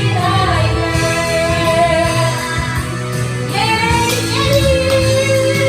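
Music: a pop song with a woman's voice singing long, held notes over a steady accompaniment.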